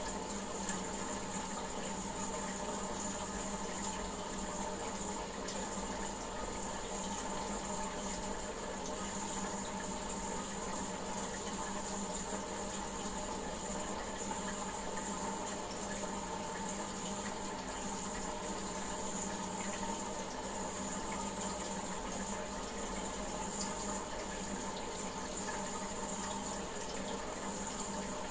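Aquarium filter running, a steady, unbroken sound of moving water in a goldfish tank.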